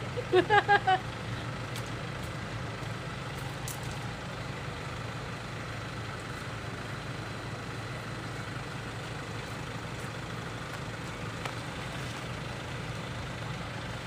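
Hyundai Starex van's engine idling steadily. About half a second in, a quick run of four or five short, loud pitched sounds.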